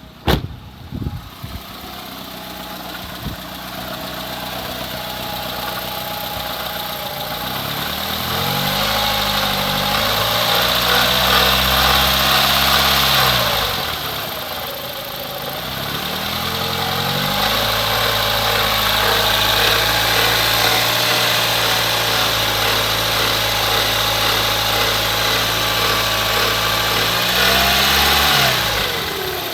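1987 Honda Accord LXi's four-cylinder engine running, revved up and held twice before dropping back. Along with it comes the car's mystery noise, put down to a worn pulley bearing on either the water pump or the alternator.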